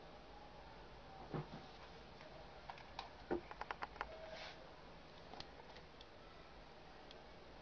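Faint plastic clicks and taps from a glasses-type watch repair magnifier being handled: one tap about a second in, then a quick run of clicks just before the middle and a few lighter ticks after.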